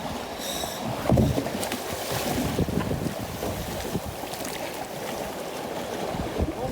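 Wind buffeting the microphone over open water, with water washing and slapping, and a louder low burst about a second in.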